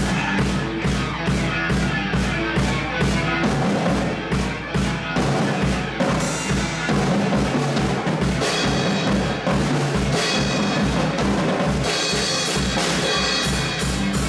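A drum kit being played in a steady rock beat, with bass drum, snare and cymbals, over a recorded backing track with a bass line. The cymbals ring out more brightly about two thirds of the way through and again near the end.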